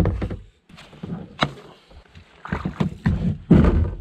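Kayak hull knocking and scraping onto a rocky shore as it is beached: a sharp knock at the start, another about a second and a half in, then scraping and clunks as the paddler climbs out and drags the boat up by its bow line.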